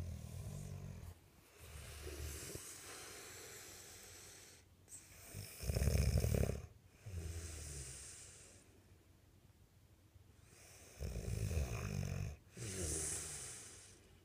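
Snoring: a loud, rattling snore at the start, another about six seconds in and another about eleven seconds in, with breathy hissing breaths between.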